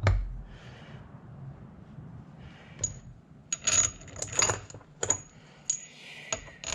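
A dull knock at the start, then scattered groups of small metallic clinks with a short bright ring: steel bolts being handled and fitted against a heavy lathe chuck and its freshly tapped hub.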